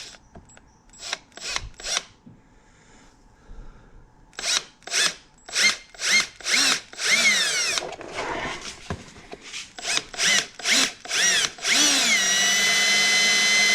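Power drill with a step bit boring through the soft plastic of a gauge pod, the motor started in many short trigger bursts, each a rising whine. It then runs steadily for the last couple of seconds.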